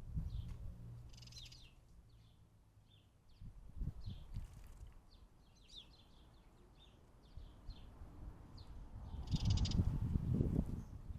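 Small birds chirping in the background, with bursts of water splashing and wing-fluttering from a house sparrow bathing in a bird bath, the loudest splashing near the end.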